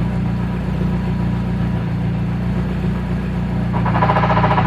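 Hyundai Tiburon engine idling steadily while the clutch is let out slowly in third gear. The idle does not drop because third gear has sheared its teeth and no longer engages. Near the end a brief buzzing rattle rises over the idle.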